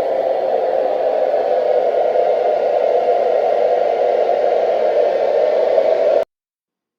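A steady, loud rushing noise with no tones in it, like a fan or a sound machine, cutting off abruptly about six seconds in.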